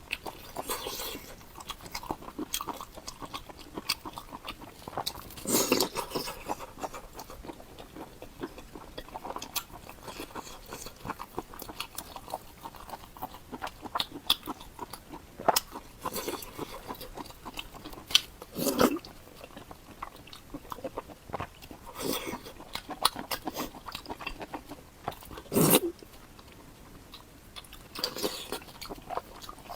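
Close-up eating sounds: a person chewing and biting food, with irregular wet mouth clicks and smacks and a few louder bites.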